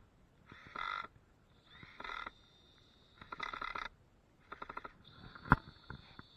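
Four short bursts of rapid ticking from a tool working wood, about one every second and a half, with a single sharp click near the end.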